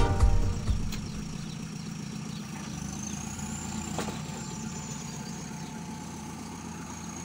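Diesel engine of an earthmoving machine running steadily at low revs, with a faint high whine above it.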